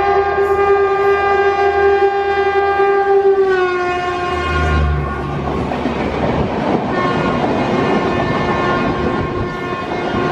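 A WAP-4 electric locomotive's horn sounds in one long blast as the locomotive approaches at speed. Its pitch drops slightly as the locomotive passes, about three and a half seconds in. Then comes the rushing clatter of the express coaches' wheels passing close by at speed.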